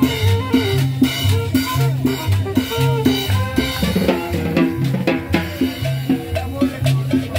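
Live dance band playing: drums keep a steady beat under a repeating bass line and melodic notes.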